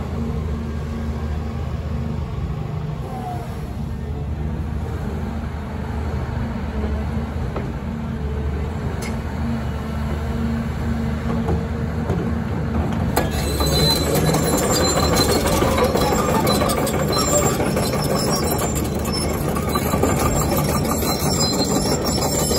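Diesel engine of a Doosan DX235LC hydraulic excavator running with a steady low hum. About halfway through the sound grows louder and harsher, with clattering and higher squealing tones added as the machine starts working.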